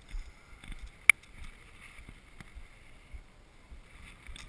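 Low rumbling handling and wind noise on a moving action camera's microphone, in a large echoing sports hall, with one sharp click about a second in.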